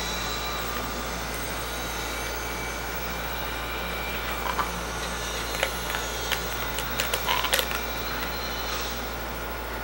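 Plastic water bottle crackling and clicking as a scarlet macaw bites and pushes it with its beak, in a cluster of sharp clicks about halfway through, over a steady low hum.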